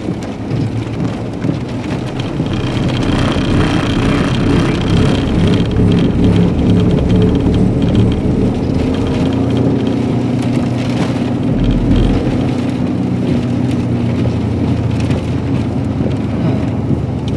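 Car driving at highway speed, heard from inside the cabin: a steady engine drone with tyre and wind noise.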